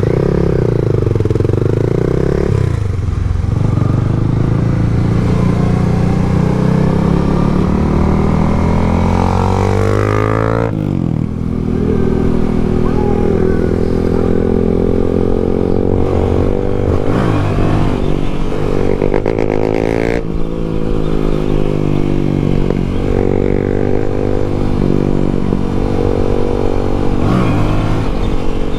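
Yamaha MT-07's parallel-twin engine running on the move, its pitch rising and falling with throttle and gear changes, with one sharp climb and drop about ten seconds in.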